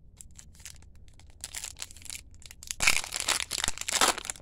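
Foil trading-card pack wrapper crinkling as it is handled, then torn open with a loud stretch of tearing and rustling about three seconds in.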